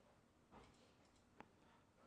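Near silence: faint room tone with a faint tick about one and a half seconds in.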